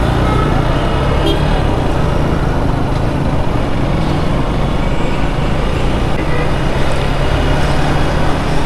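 Motorcycle engine running steadily as the bike pulls away and picks up speed in city traffic, heard from on board with road and traffic noise around it.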